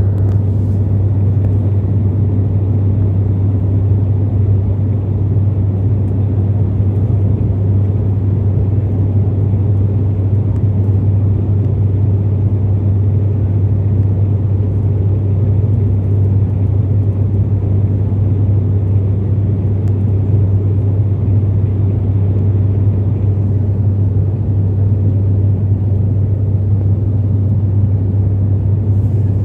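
Steady, loud drone of an airliner's engines heard from inside the passenger cabin in flight, with a strong low hum.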